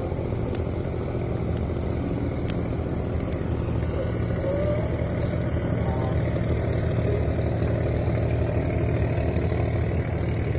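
Inboard engine of a wooden abra water-taxi boat running steadily underway: an even, low drone that does not change.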